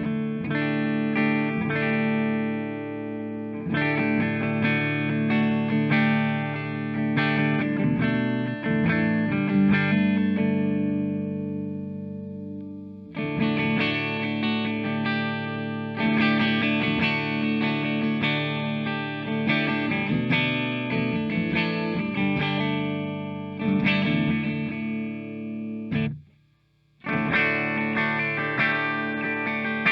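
Squier Classic Vibe Starcaster semi-hollow electric guitar played clean through effects, a jam of strummed and ringing chords with single-note phrases. The playing drops out for about a second near the end, then picks up again.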